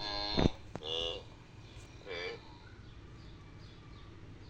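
Wildebeest calling: three short, pitched grunting calls, the first the loudest, the next two about a second apart.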